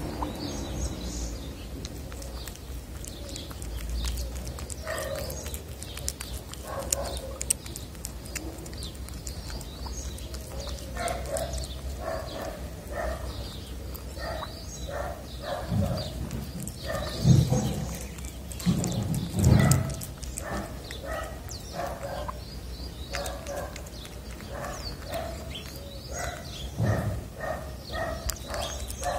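Tabby cat eating wet cat food from a plastic dish close to the microphone: wet chewing and lip-smacking in quick repeated clicks, about two a second. A few louder low thumps come about halfway through.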